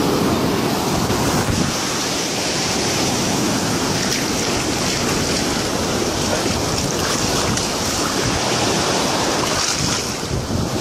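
Shallow beach surf washing and foaming steadily, with wind buffeting the microphone.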